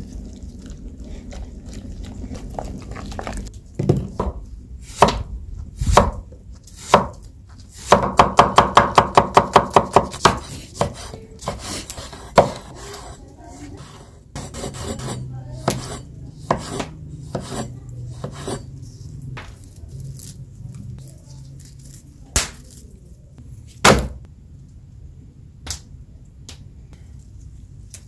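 Large kitchen knife chopping vegetables on a wooden cutting board: single cuts and knocks here and there, and a quick even run of about a dozen chops near the middle.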